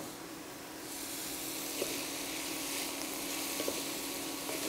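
Diced bell peppers and onions sizzling in oil in a cast-iron skillet, with a few light knocks from a wooden spatula stirring them in the second half.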